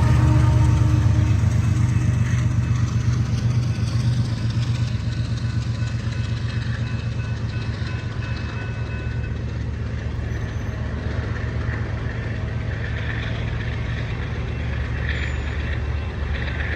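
Train rolling past a railroad crossing: a steady low rumble with fast, even rhythmic pulsing from the cars on the rails, slowly getting quieter.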